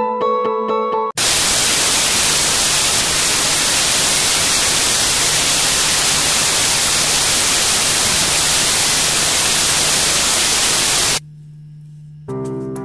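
Loud, steady static-like hiss that starts abruptly about a second in and cuts off just as abruptly about ten seconds later, with a faint low hum under it. Mallet music plays before it and keyboard music near the end.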